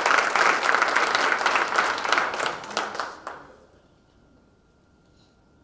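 Audience applauding, the clapping dying away about three and a half seconds in and leaving near silence with a faint steady tone.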